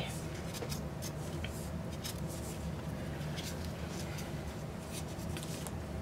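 Gloved hand rubbing and smoothing a thin coat of acrylic pouring paint over a canvas, heard as soft, intermittent scratchy rubbing strokes over a steady low hum.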